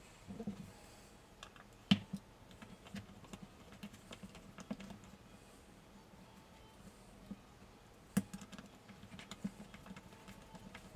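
Light, irregular clicks and taps of small parts being handled on a bench, with two sharper knocks, one about two seconds in and one near eight seconds.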